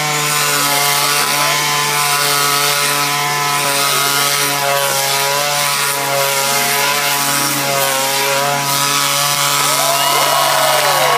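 Chainsaw engine running continuously, its pitch wavering slightly, with a few quick rising and falling glides near the end.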